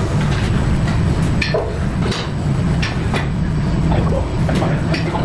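Gym room noise: a steady low rumble with scattered short clanks and clicks, as of weights and equipment being handled.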